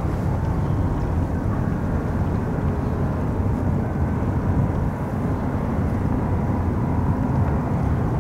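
Steady low rumble of a large car ferry's engines as it berths, with a faint steady hum above it.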